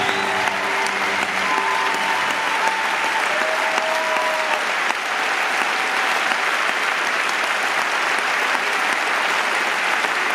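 A large theatre audience applauding steadily.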